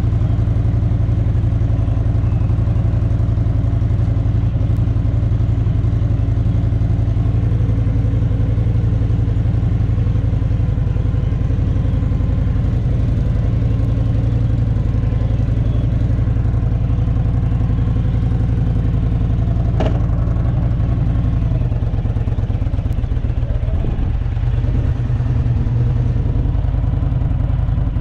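Honda motorcycle engine running steadily under way. The engine note drops about three-quarters of the way through, and there is a single sharp click a little before that.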